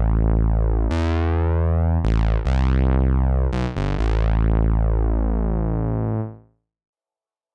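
Sampled Moog Minimoog synthesizer patch from IK Multimedia Syntronik's Minimod library playing a line of deep, buzzy notes that change pitch several times, then fading out a little after six seconds into silence.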